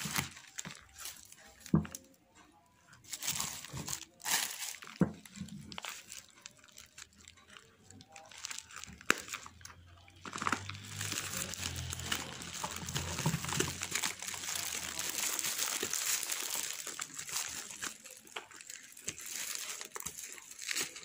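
Plastic packaging being handled and crinkled, with scattered knocks and taps through the first half, then continuous crinkling and rustling from about halfway in.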